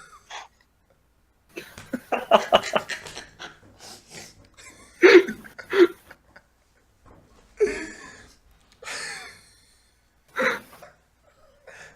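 A person snoring in separate bursts: a rattling snore, then several loud snorts a couple of seconds apart, with a noisy breath between them.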